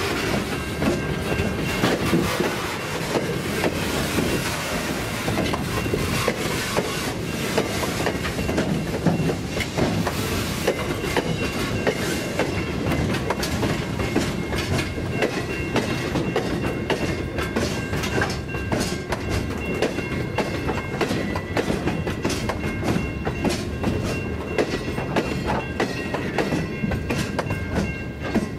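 Loaded AHAY/AHHF grain hopper wagons rolling past, their wheels clacking over the rail joints in a dense run of knocks over a steady rumble. A thin, steady high squeal from the wheels runs underneath. The sound eases a little near the end as the last wagon goes by.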